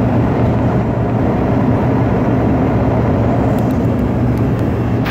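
A car on the move: steady engine and tyre drone heard from inside the cabin, with a low hum throughout.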